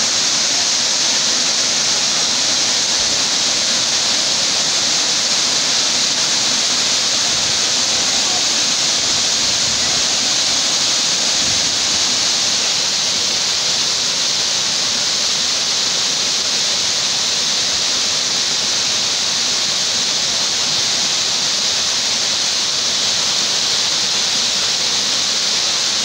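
Dzhur-Dzhur waterfall, a five-metre-wide stream of water falling about 15 m from a limestone ledge into a deep pool, giving a steady, even rush of falling water.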